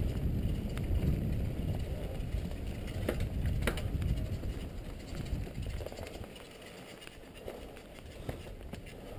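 Downhill mountain bike rolling fast down a dirt trail, heard from a camera on the rider: a low rumble of tyres and wind, with a couple of sharp rattles from the bike a few seconds in. The rumble grows quieter past the halfway point.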